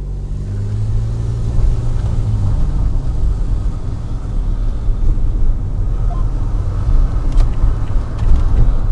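Loud, steady low-pitched mechanical rumble with a motor-like hum that fades out about two and a half seconds in: the recurring strange noise that shows up in the mornings.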